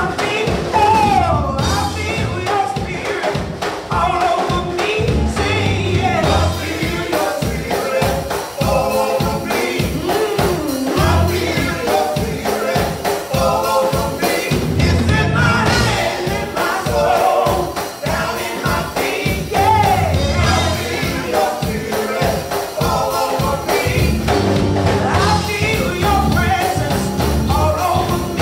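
Gospel praise team of several voices singing into microphones over accompaniment with a steady beat.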